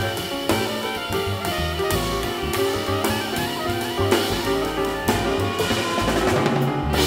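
Live jazz quartet playing: soprano saxophone leading over piano, walking upright bass and a drum kit with ride cymbal.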